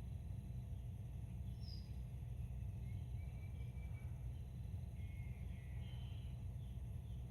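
Faint birdsong over a steady low outdoor rumble: a short chirp about two seconds in, then a few whistles and chirps from about three seconds on.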